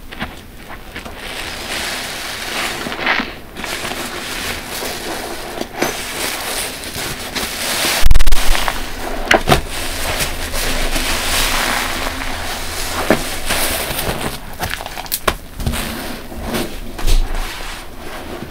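Large soft car sponge full of dish-soap foam being squeezed and kneaded by hand: wet squelching with many small crackles and pops from the suds. A loud low thump comes about halfway through.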